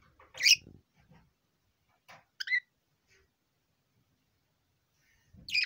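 Budgerigar giving short, high chirps: a loud one about half a second in, a quick pair around two and a half seconds, and another near the end, with a few faint clicks between them.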